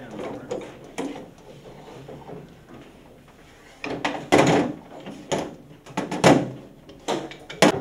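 Metal parts of an M2A1 .50-calibre machine gun being handled on a table: sharp metal clacks and sliding scrapes. One knock about a second in, then a run of them from about four seconds in, the loudest about six seconds in.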